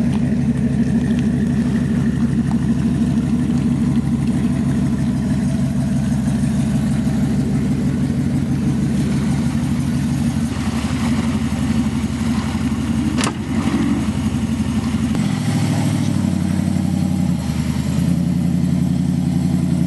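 A pickup truck's engine running steadily close by as it backs a boat trailer down a ramp, with a single sharp clank about thirteen seconds in and a change in the engine's pitch about fifteen seconds in.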